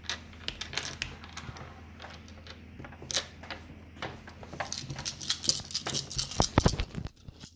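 Homemade pallet-wood draughts pieces clicking against each other and the table as they are picked up and stacked, a quick run of light wooden knocks. The knocks grow busier in the second half, with a duller knock near the end.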